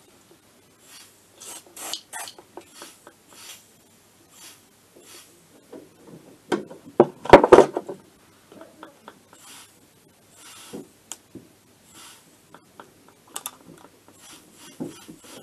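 Short repeated hisses of a WD-40 aerosol sprayed onto a pressurised AM6 two-stroke engine casing, to find air leaks in a crankcase leak test. A louder clatter of handling knocks comes about halfway through.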